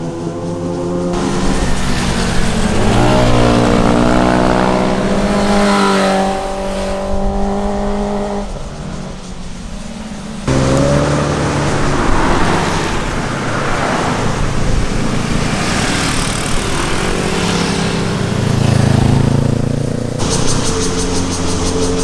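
Sport motorcycle engines passing through a bend, one pass after another, each engine note climbing as the throttle opens and then falling away. There are abrupt cuts between passes. Near the end it cuts to a Porsche 911 Turbo passing.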